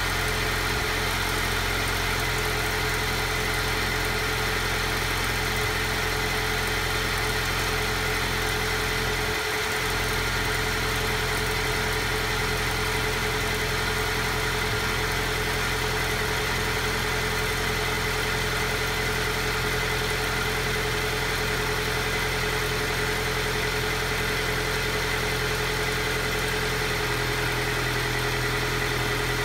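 Alfa Romeo Giulia engine idling steadily after a cold start, with a brief dip in its low note about ten seconds in; the owner calls the idle rough.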